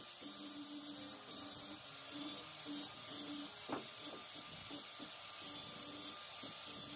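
A 5-inch electric angle grinder running steadily as it smooths the cut edges of steel.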